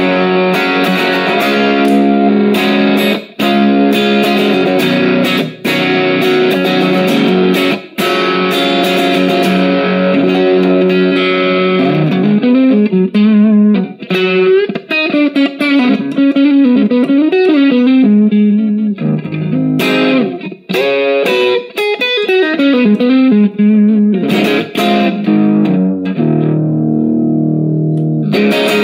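Electric guitar played through a Valeton GP200 multi-effects processor into a Cort CM15R amp, with a distorted tone. First comes a run of chords cut off short three times, then from about halfway single-note lines that bend and waver in pitch, and softer held notes near the end.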